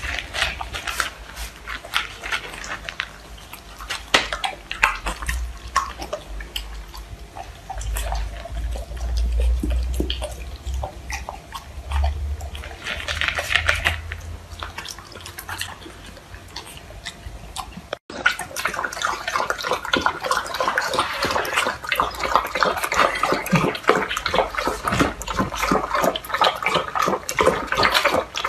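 A golden retriever crunching dry kibble from a bowl, with irregular crunches over a low rumble. After a cut about two-thirds of the way in, the golden retriever and a small puppy lap milk from plastic cups in rapid, wet laps.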